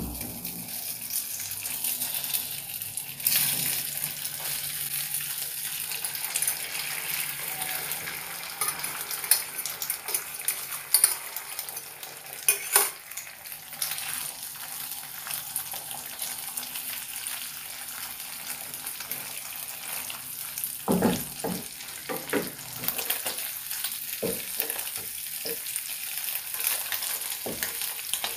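Beaten egg and pieces of wajik (sweet sticky-rice cake) sizzling in hot oil in a frying pan, the sizzle starting suddenly as the egg hits the oil. A wooden spatula scrapes and knocks against the pan now and then, with a run of knocks about three quarters of the way through.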